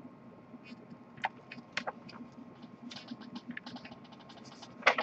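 Paper pages of a booklet being handled and turned: a run of short, irregular rustles and crinkles, with a louder rustle near the end.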